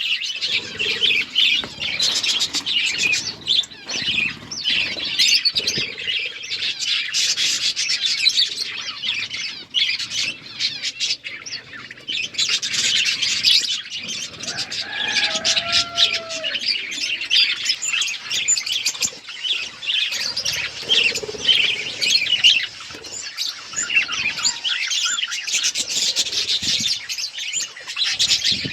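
A flock of budgies chattering, many quick chirps overlapping without a break, with a lower, drawn-out call about halfway through.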